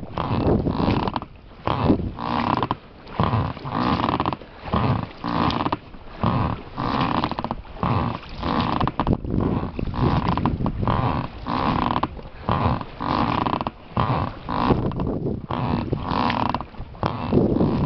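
Oars of an inflatable rowing boat creaking in their oarlocks with each stroke as the boat is rowed, a creak about every half second.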